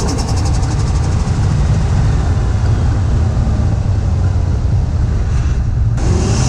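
Toyota Chaser's 1JZ-GTE turbocharged straight-six, with factory exhaust, running steadily while driving, heard from inside the cabin as a heavy low rumble mixed with road noise. Just after the start, a rapid flutter dies away. About six seconds in, the sound changes abruptly.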